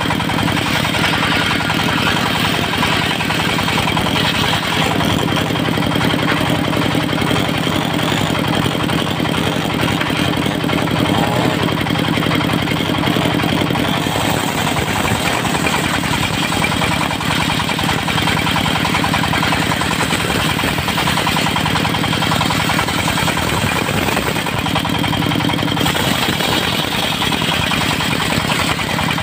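Diesel-driven circular sawmill running steadily while ripping teak into rafter stock. The engine's low drone sits under a high blade whine, and the sound shifts a few times as cuts begin and end.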